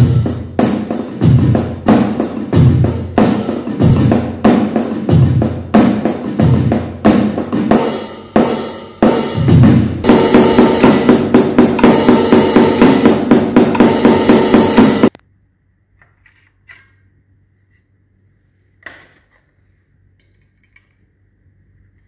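A Yamaha electronic drum kit being played through its sound module: a drum beat with kick and snare, then a fast, even run of about four or five hits a second. It stops abruptly about fifteen seconds in, and after that there is near silence with a few faint clicks.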